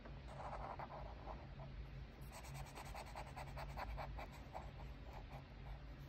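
Felt-tip marker scratching over paper in quick, repeated back-and-forth colouring strokes, faint.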